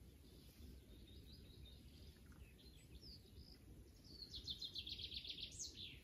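Faint outdoor birdsong: scattered high chirps, then about four seconds in a songbird's rapid series of high notes stepping down in pitch and ending in a quick falling flourish, over a low, even background hum.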